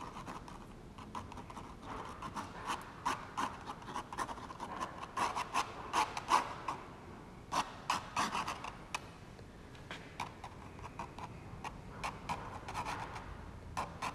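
Ink pen scratching across rough 300 lb Arches watercolour paper in many short, irregular strokes.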